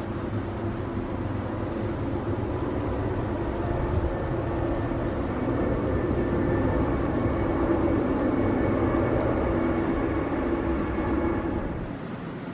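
Airbus A321neo jet engines heard from the ground on final approach: a steady engine noise with a few held tones that grows louder through the middle, then drops away suddenly near the end.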